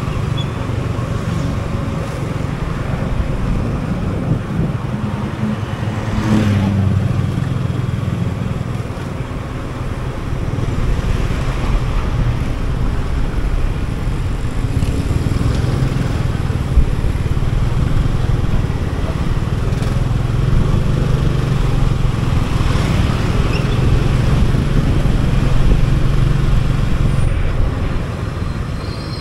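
Motor scooter running on the move through city traffic, its engine hum and the rush of wind and road noise rising and falling as it speeds up and slows. A thin high-pitched squeal starts right at the very end.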